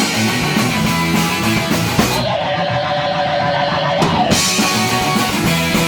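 Lo-fi garage rock band playing with fuzzy, distorted guitars, bass and drums. The cymbals drop out for about two seconds in the middle while a single note is held, then the full band comes back in.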